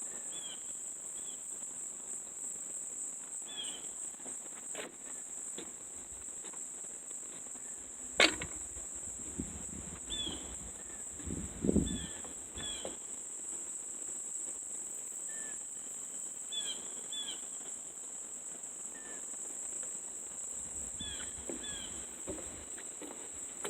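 Steady high-pitched trill of crickets, with short high chirps scattered throughout. A sharp click comes about eight seconds in, and a few low thumps follow around twelve seconds.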